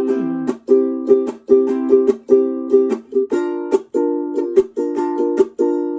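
Ukulele strummed in a steady rhythmic pattern, each chord ringing between strokes, with no voice: an instrumental break between chorus and verse.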